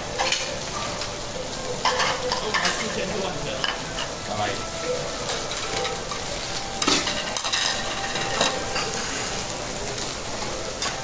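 Shredded cabbage sizzling steadily on a hot steel teppanyaki griddle, with a few sharp metallic clacks of the cook's spatulas against the plate.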